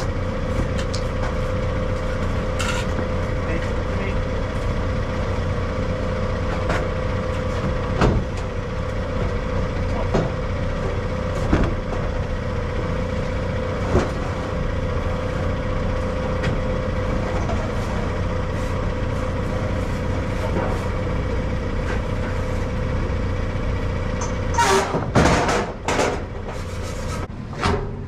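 Diesel engine of a telehandler running steadily close by, with a held engine tone under a low rumble. Now and then a sharp knock or clank cuts through, and a quick run of louder knocks comes near the end.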